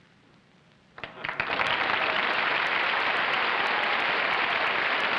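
A brief hush, then a studio audience breaks into applause about a second in and keeps clapping steadily.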